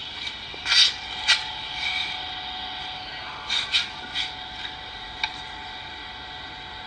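Inverter stick welding machine switched on and idling, its cooling fan and inverter giving a steady hum with a high whine. A few brief scrapes and knocks are heard over it, about one second in and again around three and a half to four seconds.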